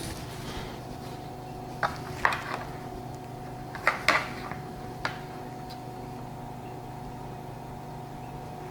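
Short sharp plastic clicks and knocks as a rubber damper is pushed and worked into a drilled hole in the hand-rest's plastic housing, a handful of them in the first half, over a steady background hum.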